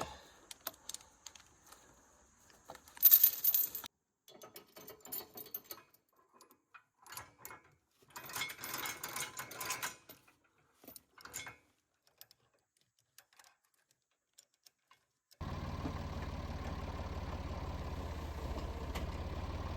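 Metal log chain clinking and rattling in short bursts as it is handled, loudest about three seconds in. After a short silence, a tractor engine comes in abruptly and runs steadily.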